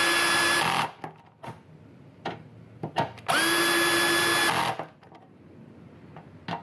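Drill/driver tightening socket-head bolts into a steel fire-pit panel in two short runs of about a second each. Each run rises quickly in pitch, then holds a steady whine. A few light clicks fall between the runs.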